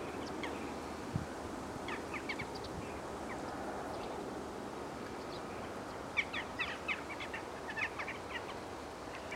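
Small birds chirping at dawn in short, high calls, a few about two seconds in and a busier run from about six to eight seconds, over a steady outdoor background hiss.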